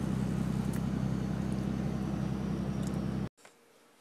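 Steady low drone of a vehicle's engine and road noise heard from inside the cab while driving. It cuts off abruptly about three seconds in, leaving faint room tone.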